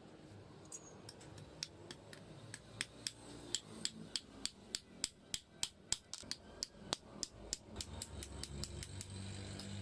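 Hammer tapping on sheet metal: a steady run of sharp strikes, about three a second, louder in the middle. A low hum comes in near the end.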